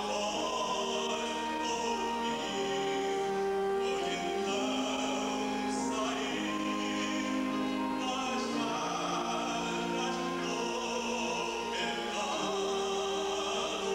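A man singing solo in a full, operatic style, holding long notes and moving slowly from one pitch to the next.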